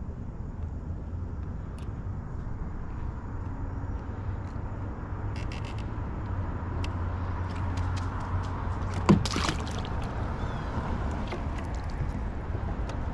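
A steady low motor hum runs throughout, with scattered light clicks and one sharp knock about nine seconds in.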